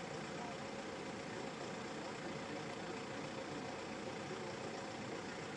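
Steady hiss with a faint hum underneath, unchanging throughout.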